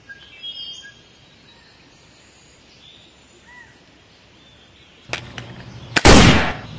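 Quiet outdoor ambience with a few faint bird chirps, then about six seconds in a sudden loud blaster-shot blast, a burst of noise that dies away within about half a second as the toy blaster fires its flame.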